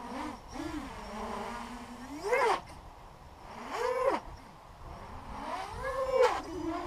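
Racing quadcopter (ImpulseRC WarpQuad 230) with T-Motor MN2206 brushless motors and HQ 6045 propellers, buzzing and whining as the throttle is worked. The pitch wobbles up and down, then climbs and falls back in three sharp throttle punches, the last the loudest.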